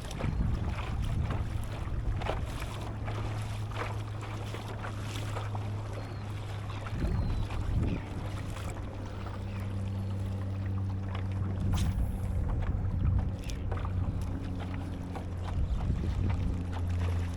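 Wind on the microphone and water noise around a fishing kayak, with scattered light knocks and clicks. A steady low hum runs underneath and picks up a few higher steady tones about halfway through.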